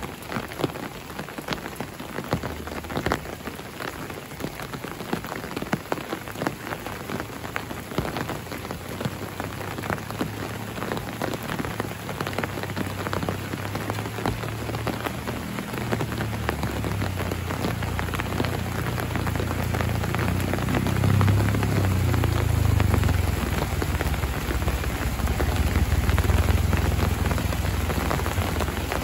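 Steady rain falling, with many sharp close drop hits. A low rumble comes in about halfway through and grows louder toward the end.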